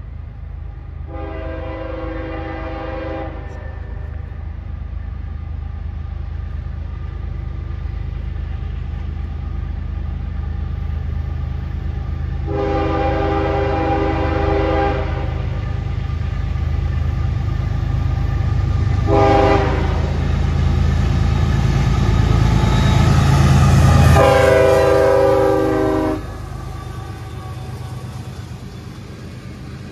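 CSX freight locomotive's horn sounding two long blasts, a short one and a long one, over the diesel locomotive's rumble, which grows louder as the train approaches. The last blast is the loudest, after which the sound drops suddenly to a quieter train running by.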